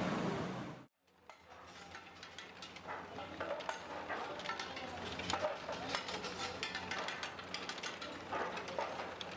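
Fired clay roof tiles clinking and clattering in scattered small knocks as they are handled and stacked, over a steady low machine hum in the tile factory. A brief room hum cuts off abruptly about a second in, before the clatter fades in.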